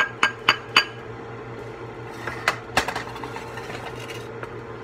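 Spoon clinking against a rice pot and bowl as cooked rice is scooped out: a quick run of sharp, ringing clinks, about four in the first second, then two more near three seconds in, over a steady low hum.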